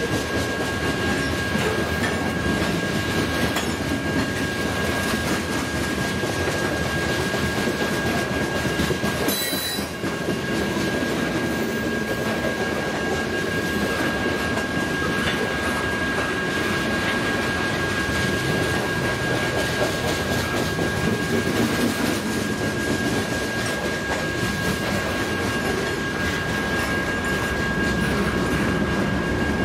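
Freight train of covered hopper grain cars rolling past: a steady rumble and clatter of steel wheels on rail, with a steady high-pitched wheel squeal throughout.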